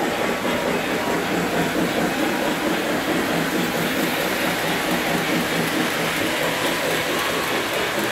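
Several Lionel model trains running on their track layout at once, giving a steady rumble and clatter of wheels on the rails.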